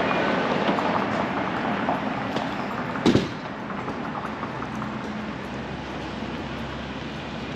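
Street traffic passing on a city street, its noise fading over the first few seconds, with one sharp clank about three seconds in, then a steadier low rumble.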